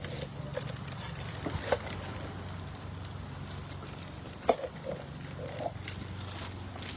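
A steady low hum with a few light knocks and clicks scattered through it, the sharpest about four and a half seconds in.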